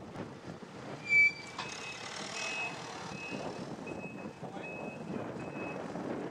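An electronic reversing alarm beeping: about six short beeps of one pitch, one every three-quarters of a second or so. Just before them, about a second in, comes a single louder, shorter beep.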